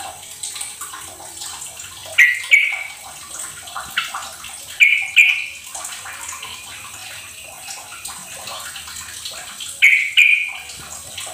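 Yellow-vented bulbul (trucukan) calling in short, bright two-note phrases, three times a few seconds apart, with fainter single notes in between, over a steady hiss. It is a lure call played so that caged bulbuls that have gone quiet will answer and sing.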